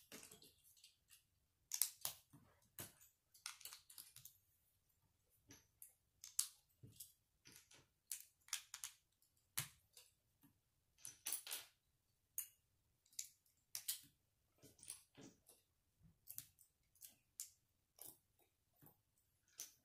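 Plastic Lego bricks being handled and pressed together: a string of faint, irregular clicks and snaps, some in quick clusters.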